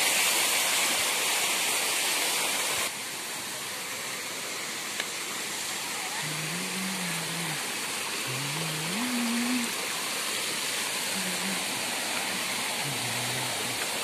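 Rushing water of a rocky waterfall and stream, a steady roar that drops in level about three seconds in. From about halfway through, several low, drawn-out pitched sounds rise and fall over it, each a second or so long.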